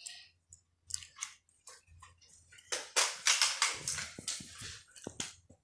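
Plastic toy dart pistol being handled and readied: a couple of light clicks, then a quick run of plastic clicking and rattling from about three seconds in.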